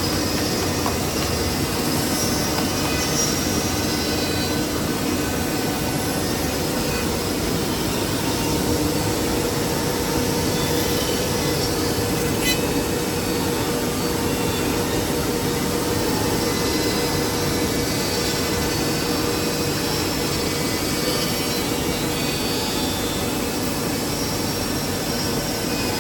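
Woodmaster Pro-Master-T4 five-axis CNC router running steadily while machining wood: a high spindle whine over a constant rush of machine noise, with a single sharp click about halfway through.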